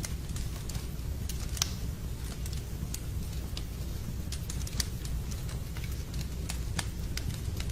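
Log fire in a fireplace crackling: irregular sharp pops and snaps over a low steady rumble of the flames, the loudest pop about a second and a half in.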